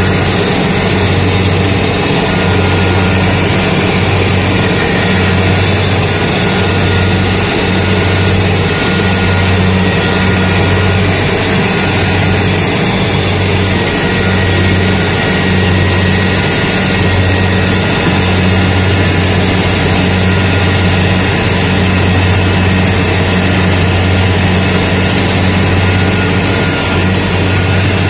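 Rice combine harvester running steadily while cutting standing rice: its engine and machinery give a loud, even drone with a constant low hum.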